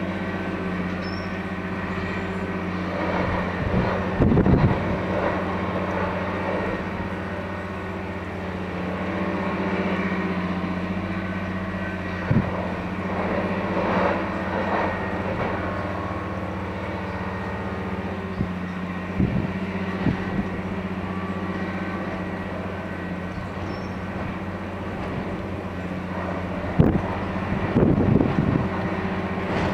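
Multiple tie tamper (track tamping machine) running with a steady diesel drone, broken by short loud noisy bursts several seconds apart as it works the track.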